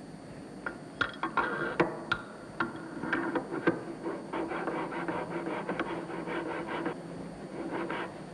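Steel fuel valve housing of a Burmeister & Wain K-GF engine having its mating surfaces ground by hand with a grinding tool: metal rubbing on metal in a quick run of short, rhythmic scraping strokes, after a few sharp clicks in the first two seconds. This is the lapping of the housing's seating surfaces during the fuel valve overhaul.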